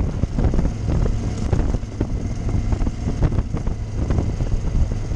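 Motorcycle engine running steadily at riding speed, with wind buffeting the microphone.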